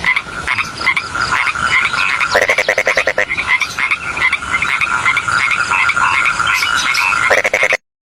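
A chorus of frogs calling, with many overlapping croaks and calls over a steady high trill, and a faster, deeper rattling call joining in twice. It cuts off suddenly near the end.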